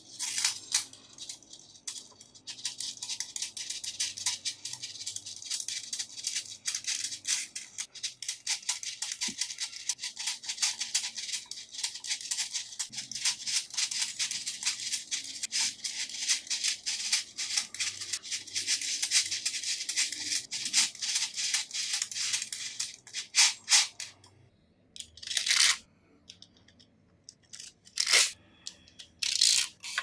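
Small neodymium magnetic balls clicking and rattling in rapid, dense runs as a chain of them is snapped row by row into a flat sheet. The steady clicking stops about 24 seconds in, and a few separate short bursts follow near the end.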